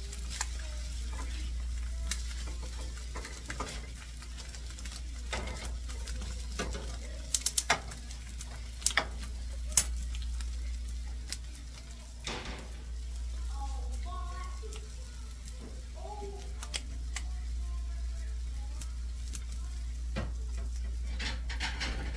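Eggs frying on a nonstick griddle over a gas burner: a steady sizzle with scattered sharp pops and clicks, a quick run of them about seven seconds in, over a constant low hum.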